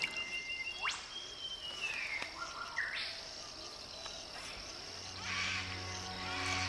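Natural bush ambience: several whistled bird calls, including a quick rising sweep and a falling whistle, over a steady high insect drone. Soft, sustained background music fades in near the end.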